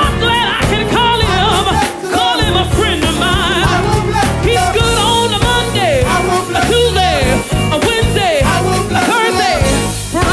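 Gospel praise-team singing: several voices on microphones singing wavering, sliding melodic lines over steady instrumental accompaniment.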